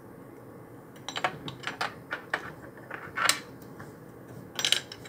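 Small, sharp, irregular clicks and taps of a circuit board and wiring being handled and pressed into place inside a metal gas-detector enclosure. They start about a second in, pause briefly, and cluster again near the end.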